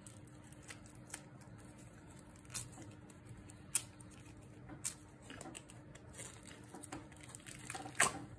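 Clear slime packed with fishbowl beads being worked out of a plastic tub by hand: scattered small clicks and crackles, then a louder burst of squishing and crackling near the end as the slime slides out.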